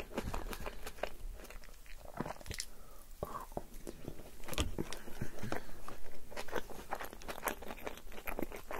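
A person chewing and biting forkfuls of yogurt tantuni, chopped meat in a yogurt sauce, with many small sharp mouth clicks and smacks.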